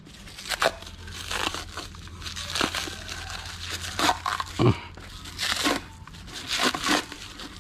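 Plastic wrap crinkling in short, irregular crackles as it is pulled and crumpled off a new chrome exhaust pipe.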